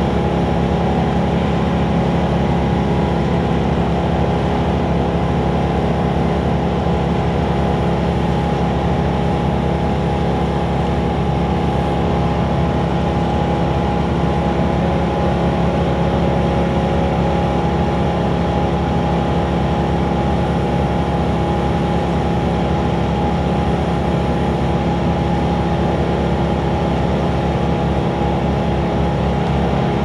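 Vermeer S725TX mini skid steer's engine running steadily at constant speed, with no change in pitch.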